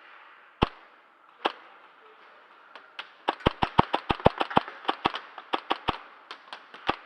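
Airsoft guns firing in sharp cracks: single shots about a second apart at first, then a fast, uneven string of shots, up to about six a second, from around three seconds in to the end.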